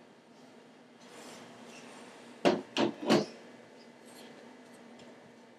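Three quick knocks in a row, about a third of a second apart, over faint room noise.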